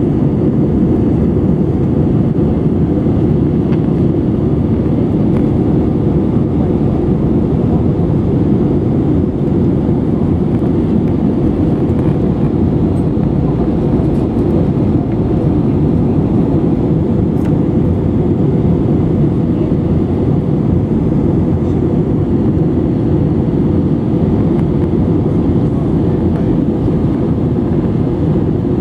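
Airbus A320-200 cabin noise during the climb after takeoff: a steady, low-pitched din of jet engines and rushing air heard from a window seat over the wing, with a faint steady hum.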